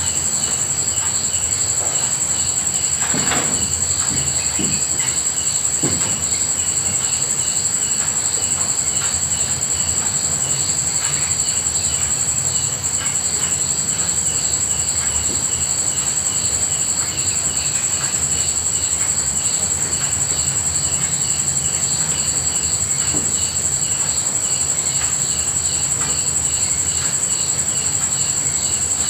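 Insects chirring: a steady high-pitched trill with a second rhythmic chirp pulsing a couple of times a second, over a steady low hiss. A few soft knocks or drips about three to six seconds in.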